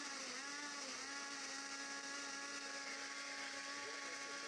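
Electric countertop blender motor running steadily with a whine as it purées onion, garlic and honey into a smooth liquid; the pitch dips briefly near the start.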